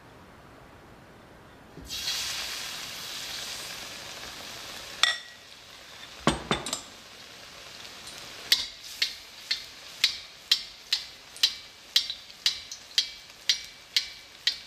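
Saltfish accra batter dropped into hot oil in a wok sets off a sudden loud sizzle about two seconds in, which fades over the next few seconds. A few knocks follow. Then a metal slotted skimmer ladles oil over the frying fritter, clicking against the wok about twice a second over a steady sizzle.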